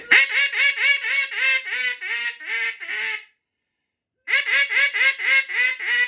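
Acrylic big-bore mallard duck call blown in long runs of loud, rapid quacks, about three or four a second, each quack dropping in pitch and each run tapering off in loudness. It is a hail-call sequence meant to reach ducks flying high. A second run starts after a pause of about a second.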